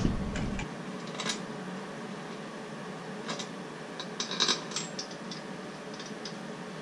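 Light, scattered metallic clicks and taps of bolts being started by hand into an aluminum intake manifold on a Ford 289 V8, with a small cluster about four seconds in, over a low steady background hiss.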